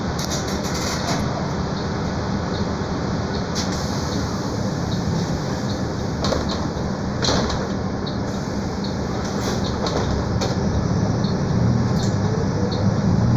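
Cabin noise of a Mercedes-Benz O-500 U city bus under way: steady engine hum and road noise with a few short knocks and rattles. The engine sound gets louder over the last couple of seconds.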